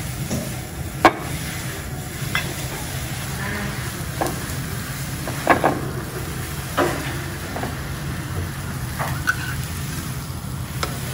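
Steady hiss of a teppanyaki griddle sizzling, over a low steady hum, with about seven sharp clicks and clinks of tableware scattered through.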